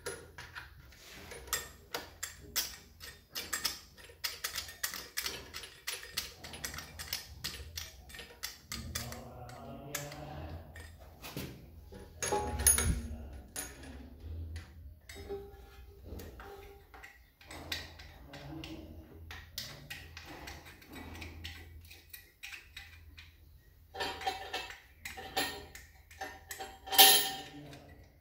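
Metallic clicking and clinking as braided stainless-steel hose nuts are screwed by hand onto a chrome angle valve, with two louder knocks, one about halfway through and one near the end.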